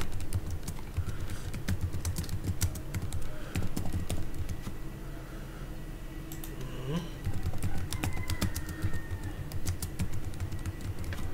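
Typing on a computer keyboard: two quick runs of key clicks with a pause of about two seconds between them.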